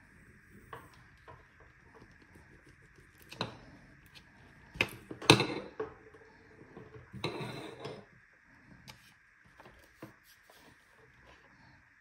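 Hard plastic attachments and the body of a Dirt Devil Scorpion handheld vacuum being handled on a wooden desktop, with the vacuum switched off. Scattered clicks and a few sharp clacks come through, the loudest about five seconds in, then a short scraping rattle around seven seconds.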